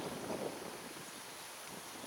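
Outdoor wind buffeting the microphone in uneven gusts over a steady rushing background noise.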